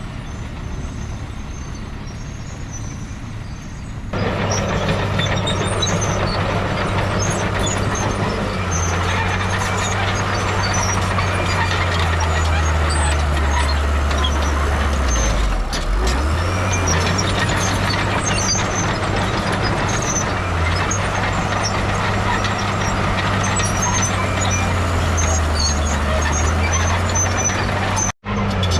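Heavy diesel earthmoving machinery running. It gets much louder about four seconds in, and its engine note sinks for a few seconds near the middle, then climbs back. Scattered high squeaks sound over the drone.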